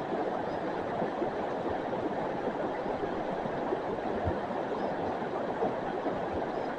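River water rushing steadily over the riverbed, an even, unbroken noise.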